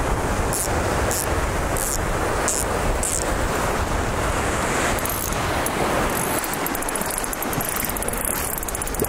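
Shallow ocean surf washing and breaking around a wading angler, with wind buffeting the microphone.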